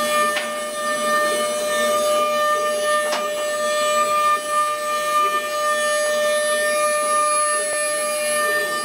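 CNC router spindle running with a steady high whine while the bit cuts a relief into wood, with a rough cutting noise under the whine. Two brief clicks come about half a second and about three seconds in.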